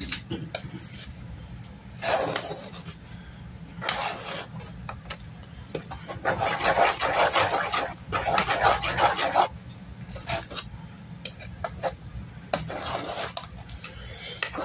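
A spoon stirring and scraping a thick oat, peanut butter and cocoa no-bake cookie mixture in a pot. It comes in separate bursts, the longest from about six to nine and a half seconds in, over a steady low hum.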